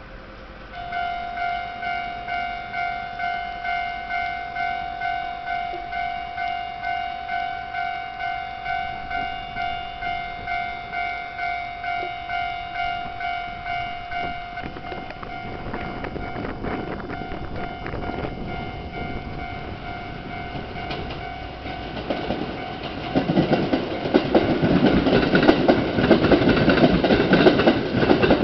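Japanese level-crossing warning bell ringing in rapid repeated dings, about two and a half a second, starting about a second in. About halfway through the bell fades as a Kintetsu electric train's wheels rumble and clatter over the rails, growing loud near the end as the train passes.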